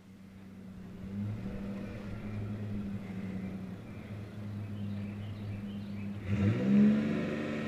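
Engine of the machine lowering the tree section running steadily at a low idle, then revving up with a rising pitch about six seconds in.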